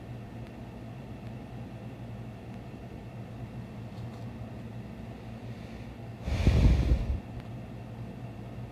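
One loud snore about six seconds in, lasting under a second, over a steady low hum.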